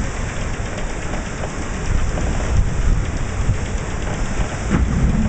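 Steady rush of water and spray as an 18 m proa's hull drives through the sea at speed, the spray hissing and spattering like rain, with wind buffeting the microphone.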